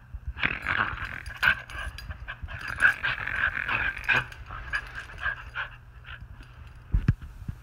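Small dog panting hard while play-biting at a person's hand, with a couple of sharp thumps near the end.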